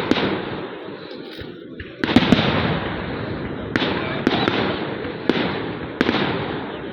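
Fireworks going off: about five sharp bangs a second or two apart, each trailing off in a fading crackle and echo.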